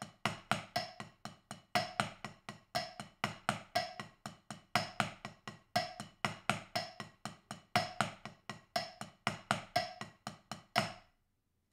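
Drumsticks striking a practice pad in an even run of sixteenth notes at 60 beats per minute, about four strokes a second, in the 6B sticking: right, left, double right, double left. The strokes stop about a second before the end.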